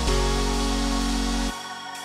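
Background music: held chords over a deep bass line, the bass dropping out about one and a half seconds in.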